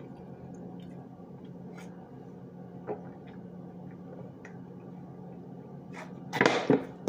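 A person drinking water from a plastic bottle: faint swallowing and small clicks over a steady low hum, with a louder crackling noise about six seconds in.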